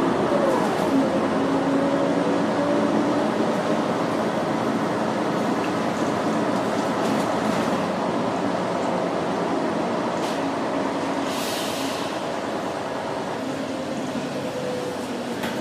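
Articulated city bus driving along, heard from inside the cabin: steady engine and road noise with a whine that rises and falls in pitch, growing a little quieter near the end. There is a short hiss about eleven seconds in.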